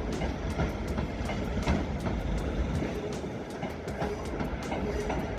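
Electric multiple-unit passenger train rolling slowly through the station, its wheels clicking over rail joints and points over a steady low rumble.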